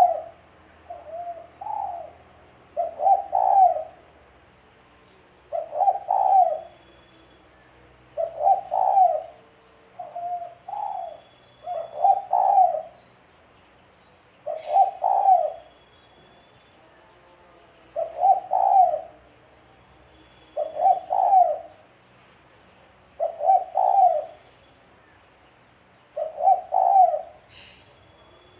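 Spotted dove (tekukur) cooing: a short phrase of a few low coos repeated about every three seconds.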